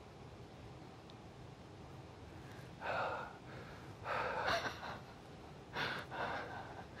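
A person breathing out sharply three times, short breathy puffs a second or so apart, over faint room tone.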